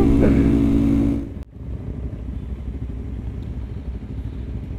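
Motorcycle engine running steadily at speed under the rider, then about a second and a half in the sound drops suddenly to a quieter, rough rumble of wind and road noise.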